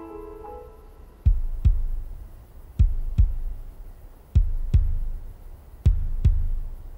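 A soft piano phrase ends in the first half-second, then a heartbeat sound effect takes over. Its deep double thumps (lub-dub) come in evenly spaced pairs about every one and a half seconds, four pairs in all.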